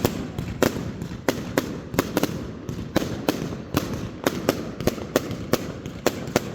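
New Year's fireworks going off: an irregular run of sharp bangs, several a second, over a continuous low rumble of more fireworks.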